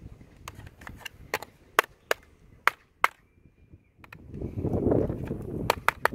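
A wooden stick jabbing and scraping at a laptop's plastic bottom case and metal plate, making about a dozen sharp, irregular taps and clicks, the loudest a couple of seconds in and again near the end. A low rushing noise swells and fades about four to five seconds in.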